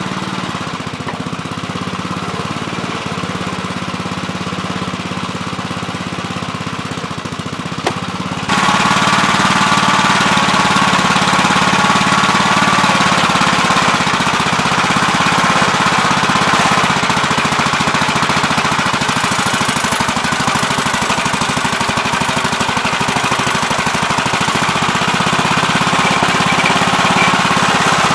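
Gravely Terramite compact backhoe's engine running steadily while digging. About eight seconds in it suddenly gets louder and fuller, with a steady whine over the engine note.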